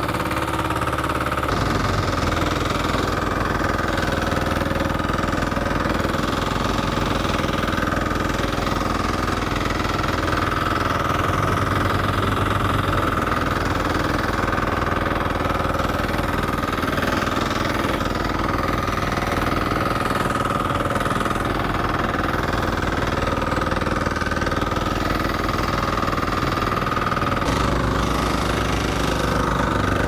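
Small engine of a walk-behind vibratory roller running steadily as the roller compacts loose backfill soil.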